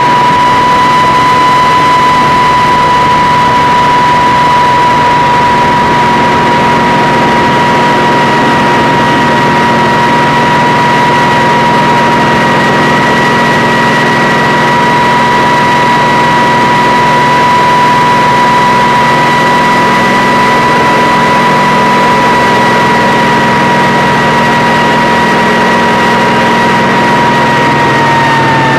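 Kamov Ka-26 helicopter running, with a loud steady high whine over a low engine drone; near the end the whine starts to drop in pitch.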